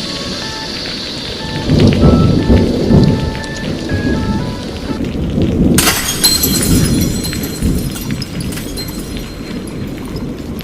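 Thunderstorm: low rolling thunder and rain, with a simple melody of short notes over it in the first half. About six seconds in a sharp crack of thunder sets off a steady hiss of rain that slowly fades.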